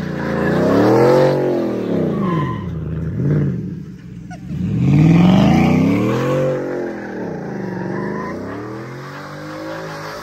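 Ford F-150 pickup's engine revving up and down over and over, about five times, as the truck spins its tires around in circles on wet pavement, burning off old tires, with the hiss and slip of spinning tires under the engine. It dips briefly about four seconds in, then revs up again.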